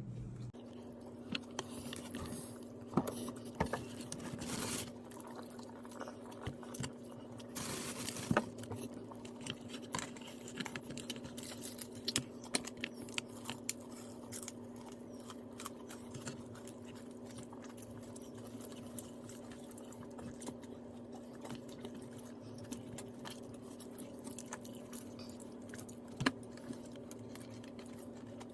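Someone eating crispy fried chicken and rice close to the microphone: chewing with frequent small crunches and clicks, a few louder crunches among them, over a steady low hum.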